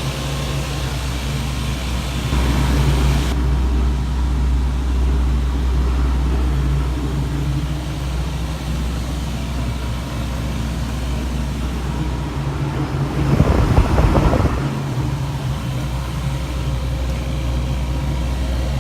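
Steady low hum of a running Carrier chiller plant. Partway through there is a louder, rougher rumble lasting about a second and a half.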